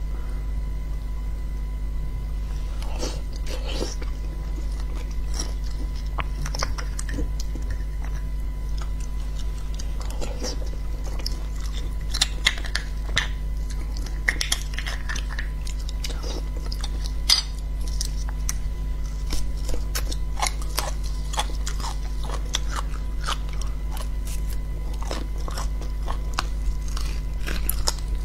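Close-miked eating of spicy beef bone marrow: many short wet chewing and biting clicks, with the spoon working the marrow out of the bone, growing busier in the second half. A steady low electrical hum runs underneath.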